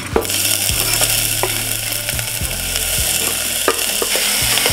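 Chopped onion sizzling steadily in hot olive oil in a stainless-steel saucepan. The sizzle sets in suddenly, with a few light knocks against the pan.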